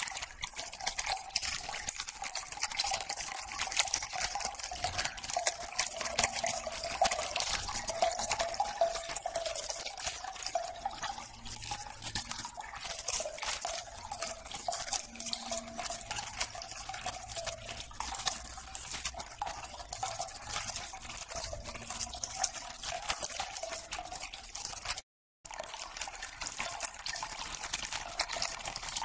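Steady crackling rustle of a black fabric Tumi McGuire travel toiletry kit being handled and opened, full of small clicks, with a faint wavering hum underneath. It cuts out briefly near the end.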